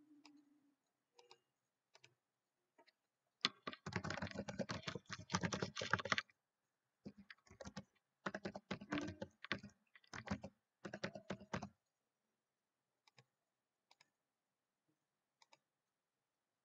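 Typing on a computer keyboard: a quick run of keystrokes, then a few more short bursts of keys, with a few single clicks before and after.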